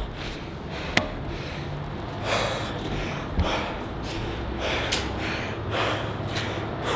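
Heavy, rhythmic breathing of a man out of breath from jogging, a loud breath puff roughly every second, over a low rumble. A sharp click about a second in and another near five seconds.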